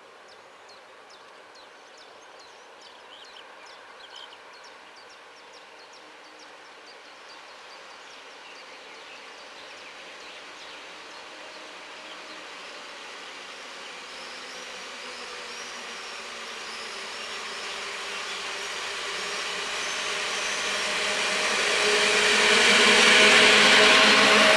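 Two PKP Intercity EP07 electric locomotives hauling a passenger train as it approaches: a faint hum with steady tones that grows louder over about twenty seconds. It becomes the loud noise of wheels on the rails near the end as the train reaches the listener. Faint bird chirps are heard in the first few seconds.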